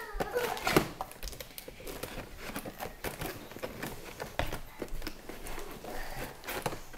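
Irregular small clicks, snips and rustles of plastic toy packaging being handled and cut open with scissors.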